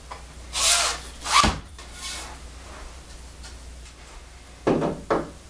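Sections of a telescoping water-fed pole sliding apart with a brief rasping rub, and a sharp knock about a second and a half in as a section is set down. Two more short rubs near the end.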